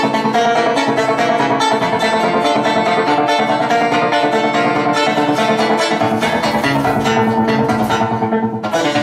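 Solo acoustic guitar played with fast picked notes, briefly thinning out just before the end.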